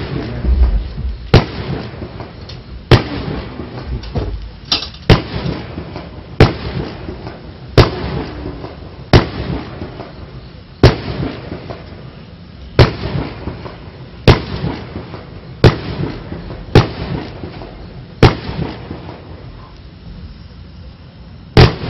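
A 30 mm consumer fireworks cake fires gold comets one shot at a time: a sharp launch bang about every one and a half seconds, each trailing off in a fading tail. A longer pause near the end is followed by two shots in quick succession.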